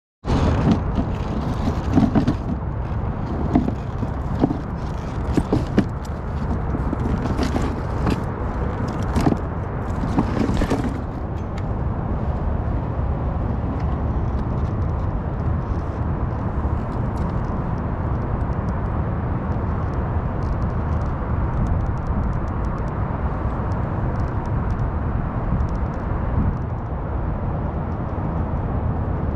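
Steady low rush of wind buffeting the camera's microphone high up on a tower facade. Handling knocks, clicks and rustles of cable and gear come on top of it during the first ten seconds or so, then it is wind alone.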